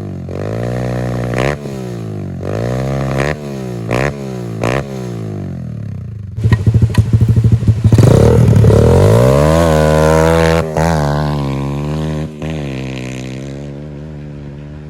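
Pit bike's single-cylinder four-stroke engine, its exhaust baffle removed, blipped up and down in repeated revs. About six seconds in it accelerates hard in a takeoff, the pitch climbing, then eases and fades as the bike rides away.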